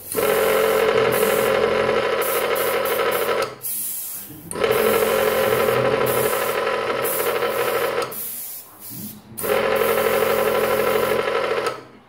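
Hao Sheng HS217 airbrush compressor running: a loud, steady motor hum with a hiss over it, noisy rather than a silent-type compressor. Twice, about three and a half and eight seconds in, the sound drops away for about a second, then comes back at full level.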